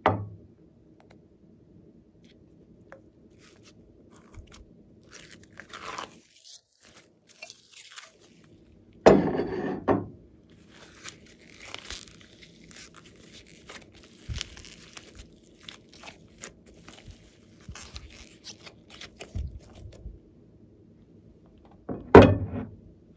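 Blue glitter slime being peeled out of a plastic cat-shaped tray and dropped into a glass bowl of white slime, with a run of sticky crackling sounds and three louder thumps: at the start, about nine seconds in, and near the end.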